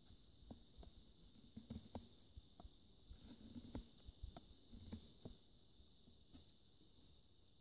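Gerber Bear Grylls Ultimate survival knife carving a wooden branch: faint, irregular scrapes and ticks of the blade cutting into the wood, stopping about a second before the end.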